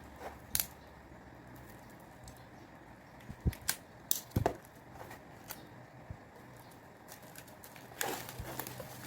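Packaging being handled during an unboxing: scattered light clicks and taps, a small cluster of them midway, and a short rustle near the end.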